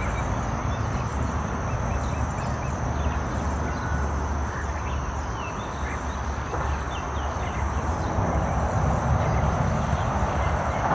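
Outdoor river ambience: a steady rushing noise of wind and moving water with a low rumble, a thin high-pitched hum throughout, and scattered faint bird chirps.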